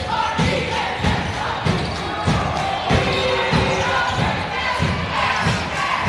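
A basketball being dribbled on a gym floor, a steady run of bounces at a bit under two a second, over crowd chatter in the stands.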